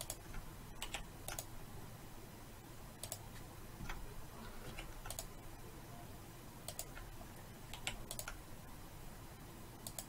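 Computer keyboard keystrokes and mouse-button clicks, single and paired clicks spaced irregularly a second or two apart. These are Ctrl+R shortcut presses and the clicks that place loop cuts in Blender.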